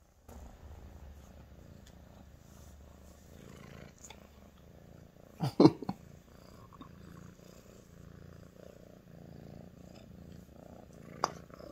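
Sphynx cat purring steadily while nuzzling against a person, with one brief louder sound about halfway through.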